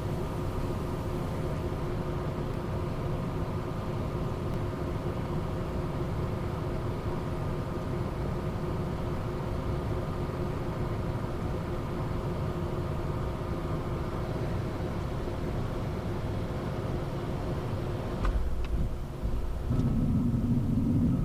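Steady cockpit noise of a Cessna Citation Sovereign business jet on final approach: a low rumble with several steady hums. About eighteen seconds in the sound changes, with a deeper, louder rumble and a new lower hum.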